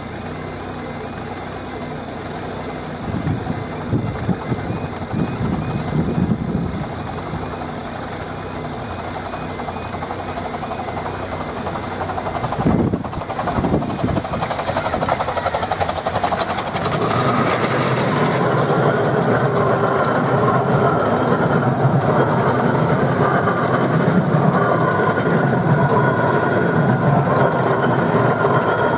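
Romney, Hythe & Dymchurch Railway 15-inch-gauge miniature steam train, hauled by loco No. 2 "Northern Chief", arriving and running over a level crossing. Its rumble and wheel clatter swell in a little past halfway and stay loud as the coaches pass. Before that a high steady warning tone from the crossing alarm is the main sound.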